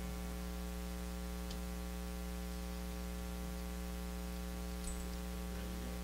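Steady electrical mains hum with hiss, with a couple of faint clicks, about one and a half and five seconds in.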